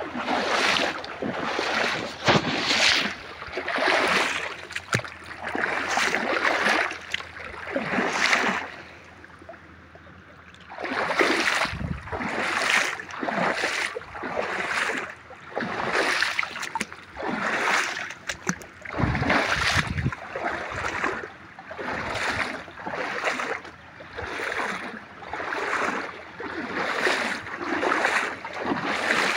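Footsteps wading through a shallow stream, each step a splashing rush of water, a little more than one a second, with a pause of about two seconds about a third of the way in.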